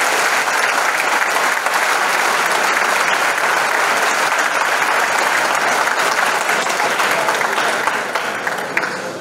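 Audience applause, steady and sustained, dying down near the end.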